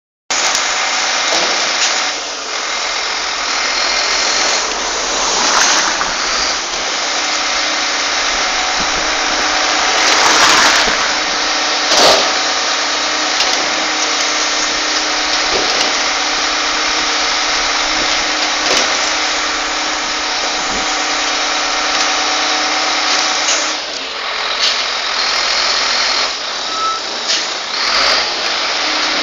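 A vehicle engine idling steadily under a loud even rush of noise, with a few short knocks and a brief louder surge about ten seconds in.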